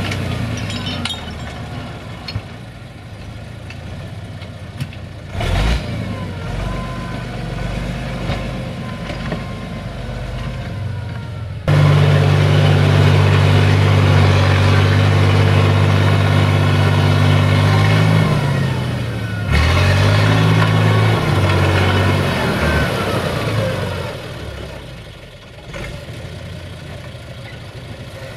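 SAME Laser 110 tractor's diesel engine working under load while dragging logs uphill. About twelve seconds in it becomes much louder and holds high revs for several seconds, the revs dip and rise again, then it eases off and runs quieter near the end.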